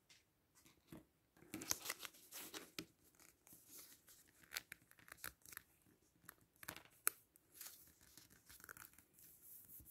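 Faint rustling and scraping of scrapbook paper being folded, slid and pressed flat by hand on a cutting mat, in short irregular bursts.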